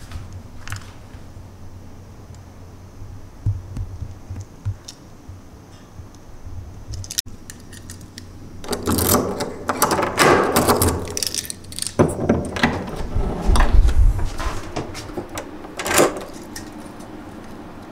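Keys jangling and rattling against a door's metal lever handle and deadbolt as the door is unlocked, with a sharp lock click about seven seconds in and another near the end.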